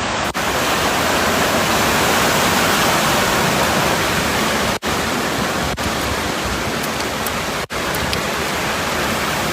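Steady, loud rush of water from a torrential rainstorm and flash flooding, broken by very brief gaps about five seconds in and again near eight seconds.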